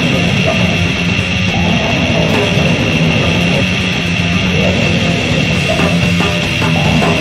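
Loud, raw goregrind recording: distorted guitar riffing and drums in a dense, unbroken wall of noise.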